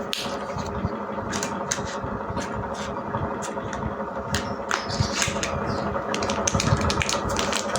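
Irregular clicks and crackles from slime and its small plastic containers being handled, over a steady background hum.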